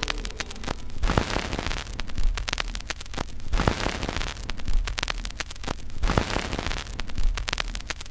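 Crackling, static-like noise full of small clicks, with a soft low thud about every 1.2 s: the noise layer of the teaser's soundtrack, with no melody.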